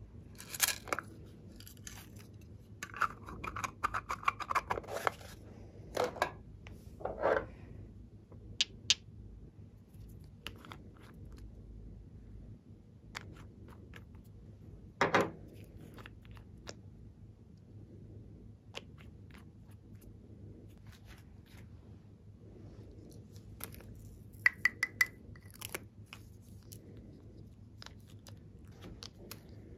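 Scattered clicks, taps and short crackles as small plastic containers are handled and opened and toppings are tipped onto slime in a glass bowl.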